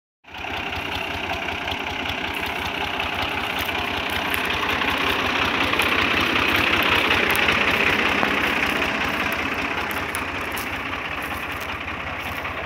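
Ghazi 65 hp tractor's diesel engine running steadily while it drives a wheat thresher, with a fast low throb from the engine and a steady rushing noise from the turning thresher drum and fan. The sound grows louder toward the middle and eases slightly near the end.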